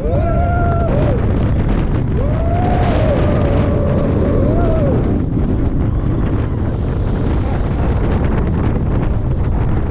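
Heavy wind rush on the microphone as a B&M dive coaster train runs at speed, with riders' long yells near the start and again from about two to five seconds in.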